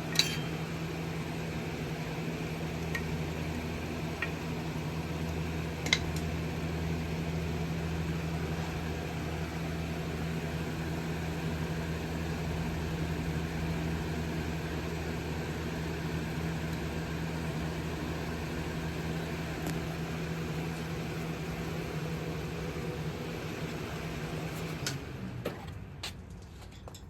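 Steady machine hum with a low constant tone, switching off about two seconds before the end, with a few light clicks and taps over it.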